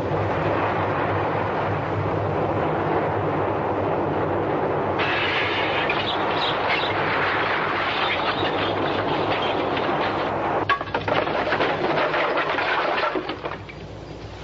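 Earthquake sound effect: a loud, continuous rumbling with crackling and rattling that grows denser about five seconds in. A sharp crack comes near eleven seconds, and the noise dies away near the end.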